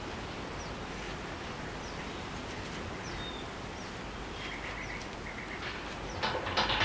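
Steady background hiss with a few faint bird chirps; about six seconds in, metal parts of the coil-spring strut and shop-crane attachment clink and rattle as they are handled.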